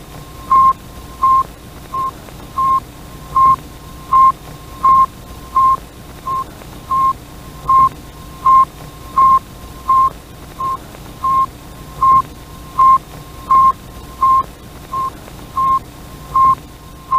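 Recorded radio beacon signal of the Sputnik 1 satellite: a steady train of short, high beeps, about three every two seconds, some louder than others, over a constant background hiss.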